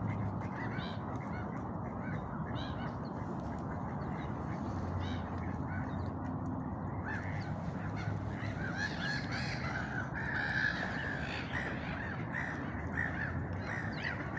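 Many birds calling with short repeated calls, sparse at first and becoming a dense overlapping chorus about halfway through, over a steady low rumble.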